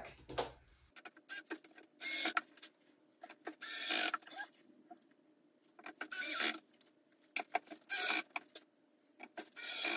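Cordless drill-driver running in about five short bursts, driving screws to fasten a lid's hinges onto a plastic crate, with small clicks and handling knocks between the bursts.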